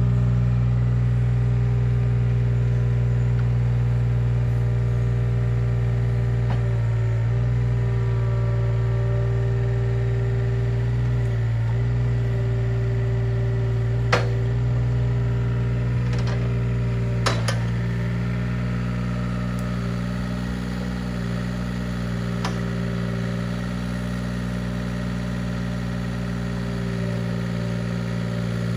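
Mini excavator's diesel engine running steadily, its note dipping briefly twice, with a few sharp knocks about halfway through.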